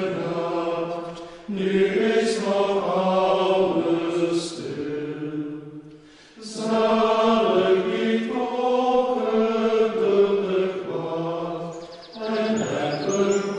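Monks chanting a hymn, in long sung phrases broken by short pauses.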